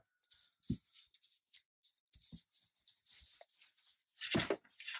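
Lurcher puppies scrabbling about on wood shavings and bedding: faint scattered rustles and scratches, a dull thump just under a second in, and a louder bump near the end.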